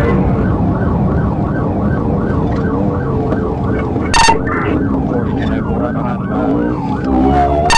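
Police car siren in a rapid up-and-down yelp, about two to three sweeps a second, over steady engine and road noise during a high-speed pursuit. Two short, sharp, loud blips cut through it, about four seconds in and at the end, and a second siren's gliding tone joins near the end.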